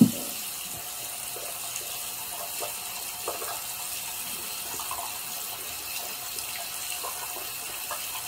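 Bathroom sink tap left running, a steady stream of water splashing into the basin.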